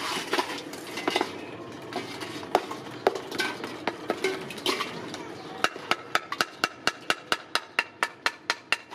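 Freshly cast aluminium piece being knocked with a metal tool over a metal bowl: scattered knocks and scraping, then about halfway through a fast, even run of sharp metallic taps, about four a second.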